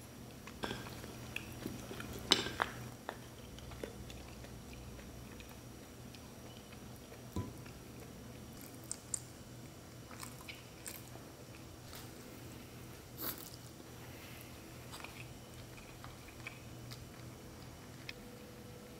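Eating at a table: chewing, and wooden chopsticks tapping and clicking on ceramic bowls and plates in scattered short knocks. The loudest knocks come about two seconds in.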